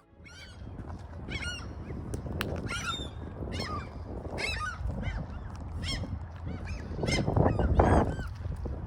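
A flock of seagulls calling: many short, repeated, squealing calls overlapping one another, over a low steady rumble. About seven seconds in there is a louder rushing noise.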